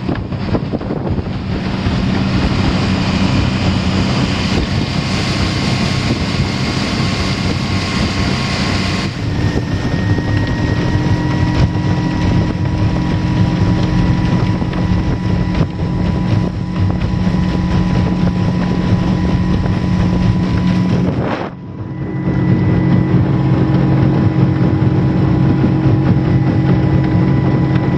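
Suzuki outboard motor running steadily at speed, a droning engine note with a thin whine above it, under wind noise on the microphone. The note shifts slightly about a third of the way in, and the sound dips briefly about three quarters of the way in.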